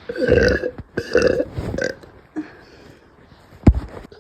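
A woman burping after drinking soda: three burps in quick succession in the first two seconds, the first the longest. A single sharp knock sounds near the end.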